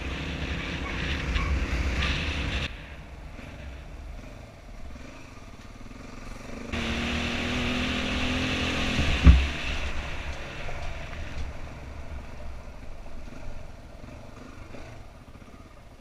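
Dirt bike engine running while being ridden, with wind noise on the microphone. The sound changes level abruptly twice, and a single sharp thump about nine seconds in is the loudest moment.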